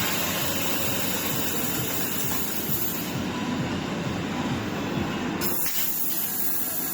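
Laser cutting machine at work: a steady hissing rush, typical of assist gas blowing through the cutting head. The sound shifts about five and a half seconds in.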